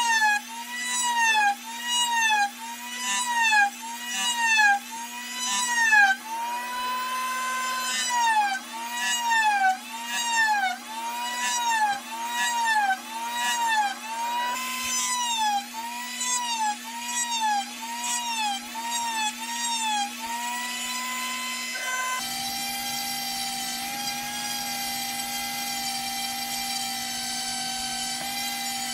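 Dremel rotary tool on a flex shaft carving wood, the motor's whine rising and falling over and over as the bit bites into the wood and lets go. About 22 seconds in, it changes to a steady, unbroken whine at a lower pitch.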